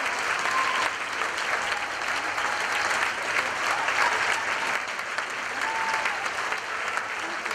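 Audience applauding steadily at the end of a stage performance.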